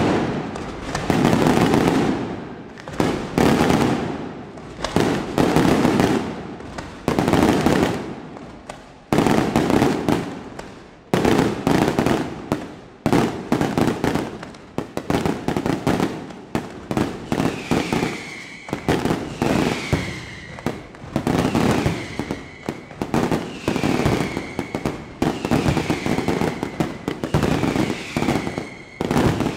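Aerial fireworks display: shells bursting one after another, a loud bang about every second or so, each trailing off. From about halfway on, each burst comes with a short falling whistle.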